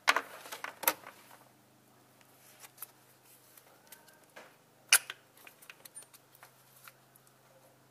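Metallic clicks and knocks of hand-tool work on a Toyota VVT-i engine's timing chain tensioner as it is worked loose. The sharp knocks come right at the start, about a second in and about five seconds in, with lighter ticks between them, over a faint steady hum.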